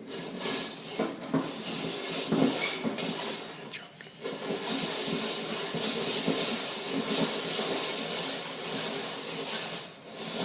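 Hand-cranked stovetop popcorn pot being turned over the burner before the kernels pop: a continuous scraping, rattling clatter of the crank and stirring paddle, with brief breaks about four seconds in and near the end.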